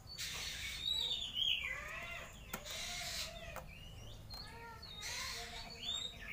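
Oriental magpie-robin (kacer) singing: a run of clear whistled notes, several sliding down in pitch, in one phrase near the start and another near the end. There is a single sharp click about midway.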